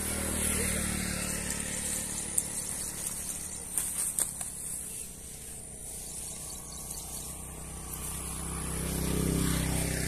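A motor running steadily with a low hum, swelling louder about nine seconds in, with a few faint clicks.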